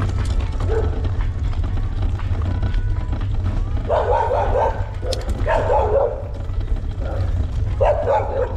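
A dog barking in clusters of quick barks, three times from about four seconds in, over a steady low rumble of wind on the microphone.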